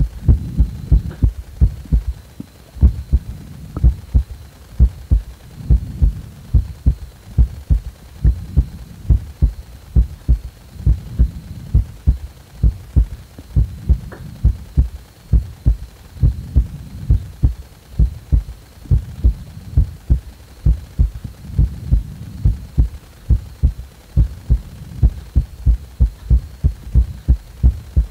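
Recording of a human heartbeat: a steady run of low, muffled thumps, roughly one to two a second, with a faint steady high tone behind them.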